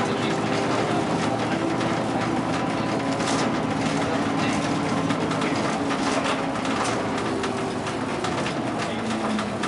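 Bus engine running steadily under way, heard from inside the cabin, with a hum whose pitch shifts slightly and short rattles from the interior.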